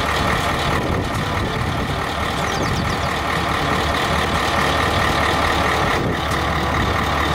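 Heavy three-axle dump truck's diesel engine running steadily at idle, a constant low hum.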